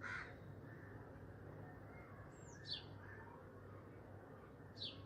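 Faint bird chirps: two short, quickly falling high chirps, one near the middle and one near the end, over a low steady background hiss.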